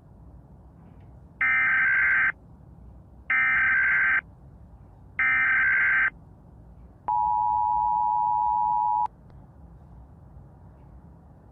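Emergency Alert System alarm. It plays three short screeching data bursts of the SAME header, then the two-tone attention signal, held about two seconds before it cuts off.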